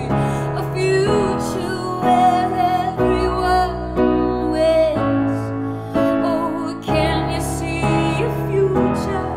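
A woman singing a slow, tender song with vibrato while accompanying herself with piano chords on a red Nord keyboard. Deeper bass notes come in about three seconds and again about seven seconds in.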